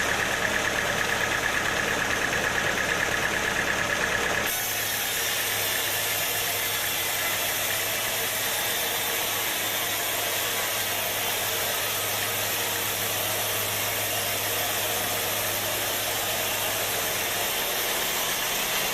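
Sawmill machinery running steadily, engine-like, with a high whine and a low rumble. About four and a half seconds in the sound changes abruptly: the whine and rumble drop away, leaving a steady hiss and a low hum that fades out near the end.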